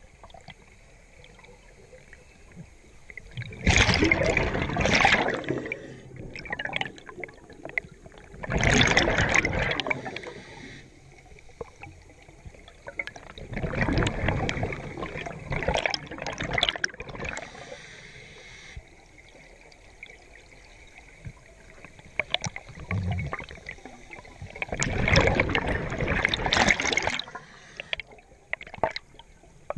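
Scuba regulator exhaust underwater: a diver's exhaled bubbles gurgling out in four main bursts several seconds apart, one per breath, with quieter stretches between.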